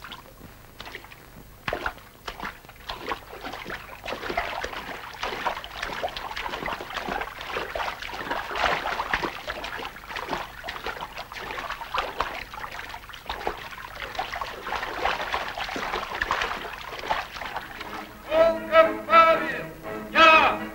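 Irregular splashing of feet wading through shallow river water, building up a few seconds in and going on steadily. Near the end, louder music starts.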